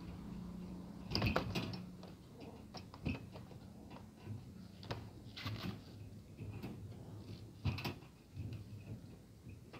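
A kitten growling low and steady for about the first two seconds, from fear and anger at the adult cats. Scattered sharp clicks and knocks run through it, the loudest about a second in and again near the end.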